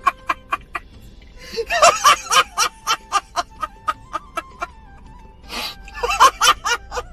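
A man laughing hard in a fast, even string of short 'ha-ha-ha' bursts, about five a second, with a brief break about five seconds in before the laughter resumes.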